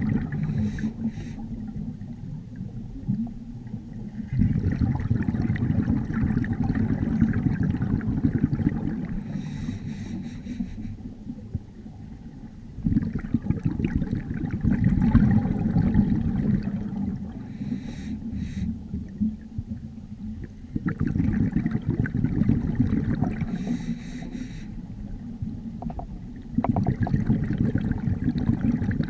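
Scuba diver breathing through a regulator underwater: long bubbling exhalations alternating with short hissing inhalations, about four breaths.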